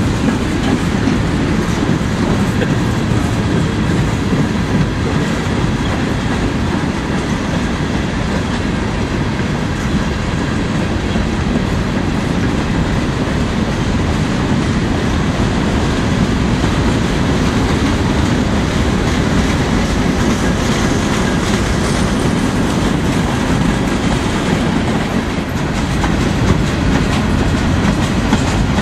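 Freight cars rolling past close by: steel wheels clattering over the rails in a loud, steady rumble.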